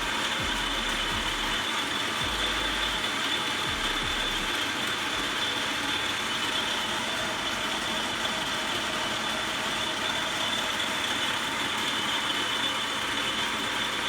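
Machinery running steadily: a continuous even whir with a thin high whine held throughout.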